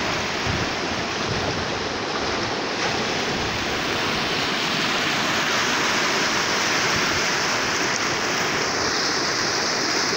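Banaz Çayı running high and fast with muddy rainwater, a steady loud rush of water over rapids. It grows a little louder about halfway through.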